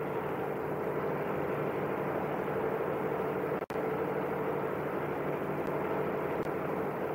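Rubber-processing machinery running steadily with a low, even hum. The sound drops out for an instant about halfway through.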